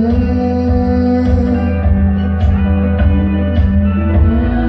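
Live music from a duo: hollow-body electric guitar and keyboard playing a song, with long held notes over a steady low pulse.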